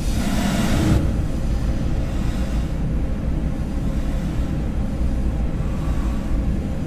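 Extremely time-stretched audio: a dense, steady low rumbling drone from a sample slowed about 200 times, with a second layer stretched five times entering as a brief noisy swell in the first second.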